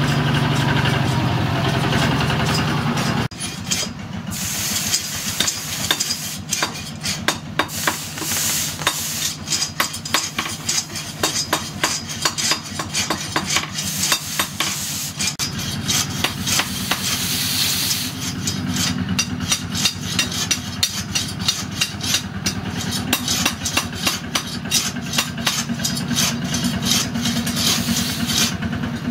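A steady motor hum at the charcoal forge for about the first three seconds. Then a hot steel knife blade is quenched in a water trough, crackling and hissing in fits as it is moved through the water, over a quieter steady hum.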